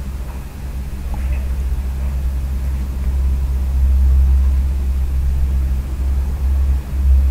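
Steady low rumble that grows a little louder after about a second.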